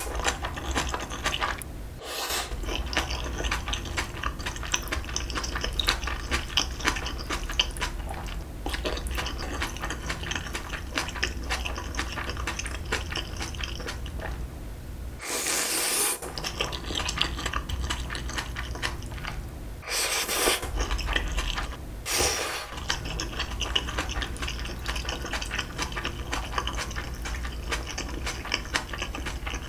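Close-miked chewing of instant ramyeon noodles: a dense run of wet clicks and smacks, broken by a few louder noodle slurps about fifteen, twenty and twenty-two seconds in.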